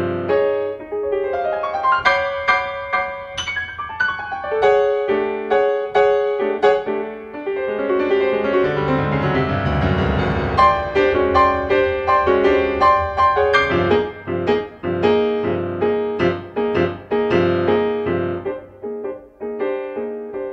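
Solo piano playing fast, repeated notes. About eight seconds in, a dense tone cluster reaching into the bass swells and rings for several seconds before the rapid notes return.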